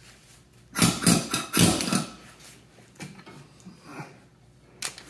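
Metal hand tools clanking and knocking against the engine as a wrench and socket are fitted onto the distributor drive gear nuts: two loud bursts of clatter about a second in, then a few lighter knocks.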